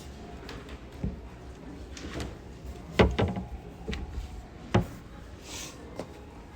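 Cabinet doors and drawers being opened and shut, making a series of short knocks and clunks. The loudest comes about three seconds in, a quick double knock, and another strong one follows near five seconds.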